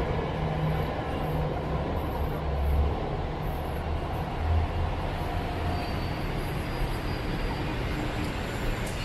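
Steady low mechanical rumble and hum in an MRT station, easing off slightly near the end.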